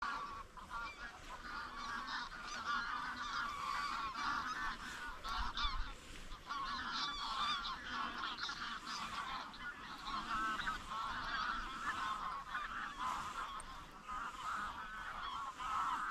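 A flock of Egyptian geese honking, many calls overlapping without a break.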